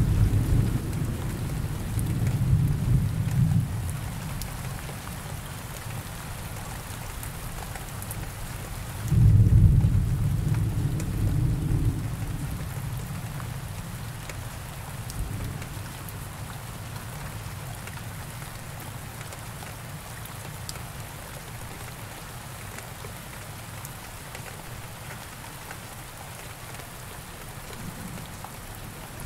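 Steady rain hissing, with two low rolls of thunder: one already rumbling at the start and dying away over the first few seconds, another about nine seconds in that fades by about twelve seconds. Only the rain continues after that.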